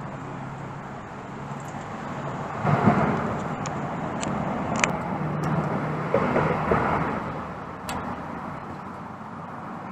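Road vehicle noise: a steady low hum that swells louder twice, about three seconds in and again around six to seven seconds.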